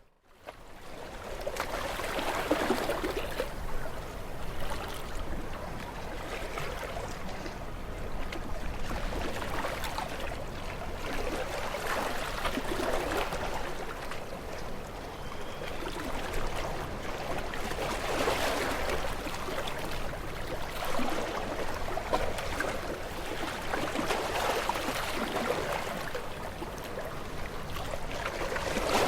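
Gentle sea waves washing onto a shore: a steady rushing hiss that swells and eases every few seconds, after a brief dropout at the very start.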